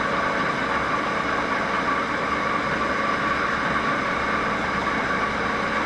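Drill press running steadily, its motor and spindle giving an even hum with a faint high tone, no change or cutting bites to be heard.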